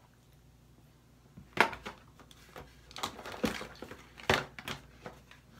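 Makeup items being handled on a table: irregular sharp clicks and knocks of small containers and tools with some rustling, starting about a second and a half in.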